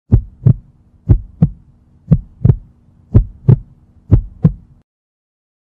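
Heartbeat sound effect: five lub-dub double thumps, about one a second, over a faint low hum, all cutting off suddenly near the end.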